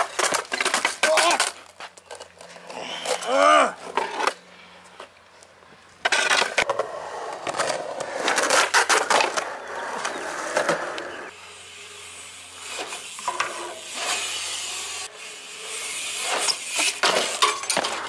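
Skateboard wheels rolling over concrete, with the sharp clacks and knocks of the board hitting the ramp and ground. A short shout rises and falls about three seconds in.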